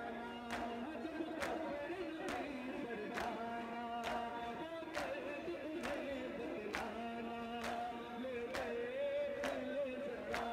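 A group of men chanting a Shia noha in chorus, with a sharp, even beat a little under once a second of hands striking chests (matam) in time with the chant.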